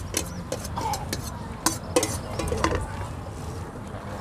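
Metal spoon scraping and clinking against a stainless steel mixing bowl as spicy salad is scooped out of it into a plastic takeaway box, with sharp clinks at irregular intervals.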